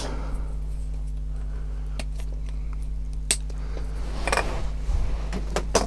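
Plastic parts clippers snipping a plastic model wheel off its sprue: several sharp clicks, the clearest about three seconds in and two close together near the end.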